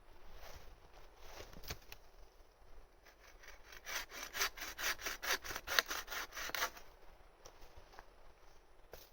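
Hand saw cutting through wood: a few separate strokes, then a quick run of about five strokes a second, lasting nearly three seconds, from about four seconds in.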